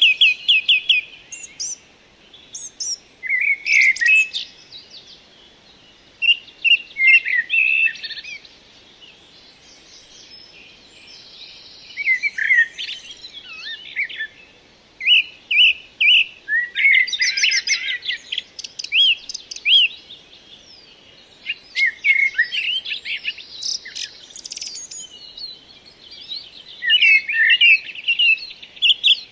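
Songbirds singing in short bursts of rapid chirps and trills, with a brief lull about a third of the way through.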